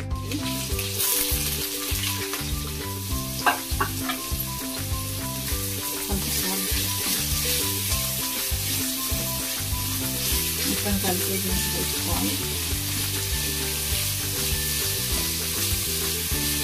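Sliced onions sizzling in hot oil in a hammered metal kadai while a steel spoon stirs and turns them. There are a couple of sharp clinks about three and a half seconds in.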